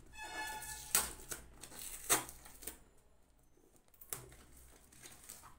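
Cardboard shipping packaging torn and pulled open by hand. There is a short squeaky rip at the start, then sharp rips about one, two and four seconds in, and rustling between them.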